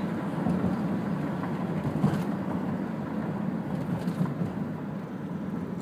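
Road and engine noise inside a moving taxi cab: a steady low rumble.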